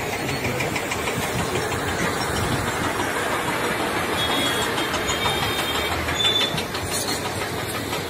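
Steady rumble of diesel engines from excavators and dump trucks working an excavation pit.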